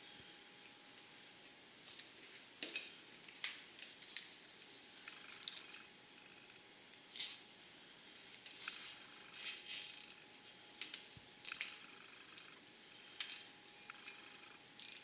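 Nylon cable ties being pulled tight around a bicycle's wiring harness: a series of short, sharp ratcheting rasps and clicks at irregular intervals.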